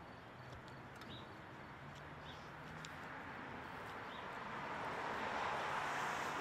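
Faint outdoor background noise with a passing road vehicle whose sound grows louder over the last few seconds, and a few faint high chirps.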